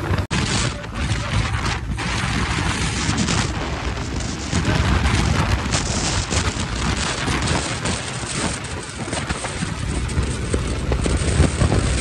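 Heavy wind buffeting on the microphone of a TVS Apache RTR 4V motorcycle ridden at highway speed and gaining speed, the motorcycle's running mixed in beneath. The sound cuts out for an instant just after the start.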